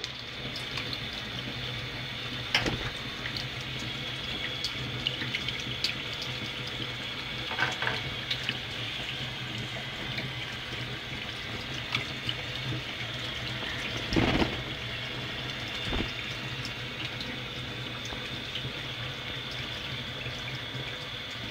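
Kitchen tap running into a stainless-steel sink, a steady splashing hiss, with a few sharp clicks and a louder low thud about fourteen seconds in.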